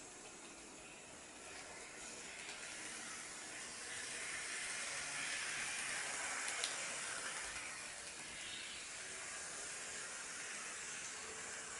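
HO-gauge model electric locomotives running on an oval of track, a faint steady hiss of motors and wheels on rail. It grows louder as one locomotive passes close by about halfway through, with a single click near its peak.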